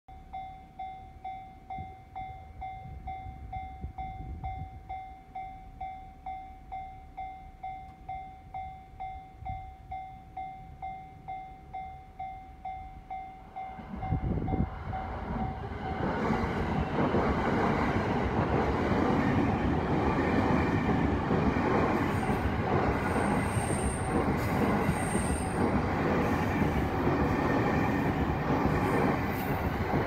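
Japanese level-crossing warning bell ringing in an even ding-ding, about two strokes a second. About halfway through, the bell gives way to a JR East E231-series electric commuter train passing close by: a loud, steady rush of wheels on rails.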